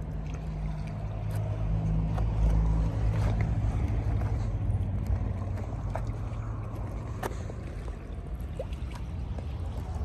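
A motor engine droning, a low steady hum that grows louder about two seconds in and then slowly eases off, with scattered small clicks over it.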